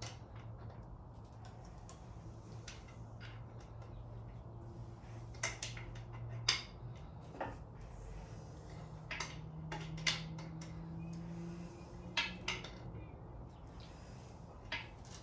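Cordless drill spinning an engine's oil pump through a priming tool, pushing oil up to the pushrods and rockers: a low steady hum that stops about six seconds in and comes back higher-pitched for a few seconds, with scattered light metallic clicks.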